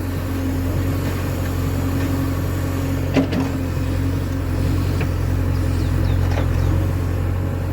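Diesel engine of a heavy farm or construction machine running steadily under light load, with a single sharp knock about three seconds in.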